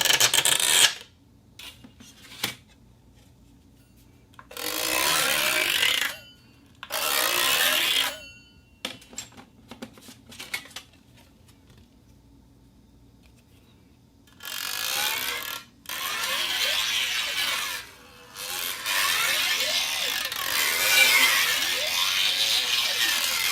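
A steel sheet being scraped and rubbed in five noisy bursts, each a second or two long except the last, which runs about five seconds. A few light clicks and taps fall in the quiet gaps.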